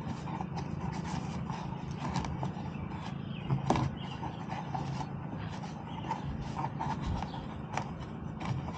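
Kayak tie-down strap being pulled through the roof rack: the webbing scrapes and rubs, with scattered light knocks and one sharper knock about three and a half seconds in.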